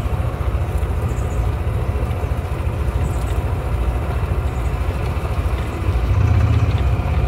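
Steady low rumble of a small open vehicle running and rolling slowly along a paved road, swelling slightly near the end.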